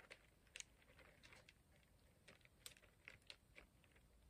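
Near silence, with faint, scattered little clicks and rustles from a leather high-top sneaker being turned over in the hands close to the microphone.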